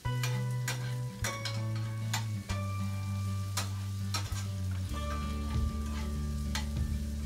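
Chopped onions frying in oil in a nonstick skillet, sizzling, while a metal spoon stirs them with repeated clicks and scrapes against the pan. Background music with held low notes plays underneath.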